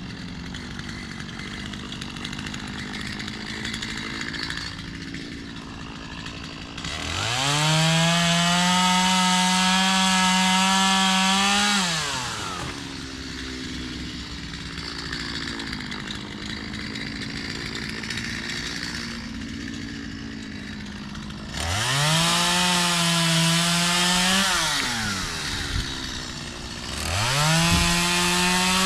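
Gas chainsaw idling, then revved to full throttle three times, each time rising fast and holding high for a few seconds before dropping back to idle, as it cuts through crepe myrtle wood.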